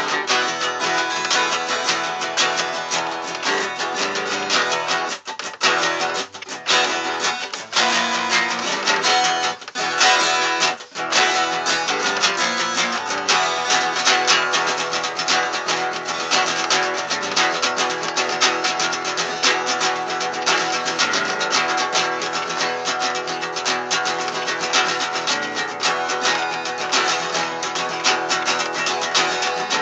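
Acoustic guitar music, strummed and plucked, with a few brief breaks in the playing a few seconds in.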